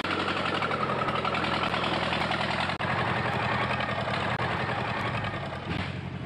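Farm tractor's diesel engine running steadily as the tractor drives up and passes close by, easing off slightly near the end.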